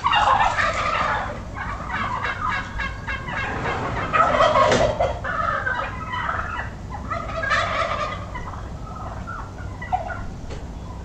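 A bird calling loudly and repeatedly in quick rattling runs, strongest in the first few seconds.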